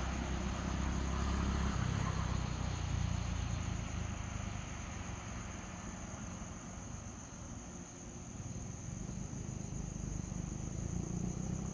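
A low engine rumble, louder in the first few seconds, dipping about two-thirds of the way through and building again near the end, over a steady high trill of crickets.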